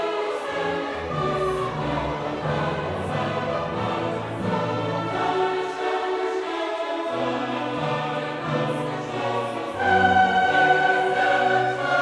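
Classical choral music with orchestra: a choir singing held chords over strings, growing louder and fuller near the end.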